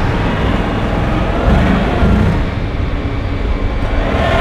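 John Deere 3038E compact tractor's diesel engine running steadily as the tractor drives along a gravel drive.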